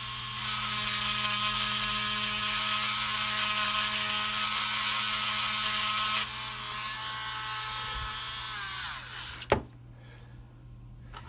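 Small handheld rotary tool running with a steady high whine, its bit grinding the chrome coating off a notch in a metal lens bayonet mount. About nine seconds in it is switched off and winds down with a falling whine, followed by a single knock.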